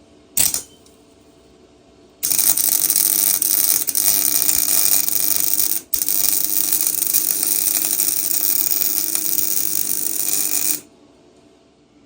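MIG welder arcing: a brief crackle about half a second in, then about eight seconds of continuous frying crackle with a short break near the middle. The weld is a washer being tacked onto a sheared exhaust stud, the first step of the nut-welding method for extracting it.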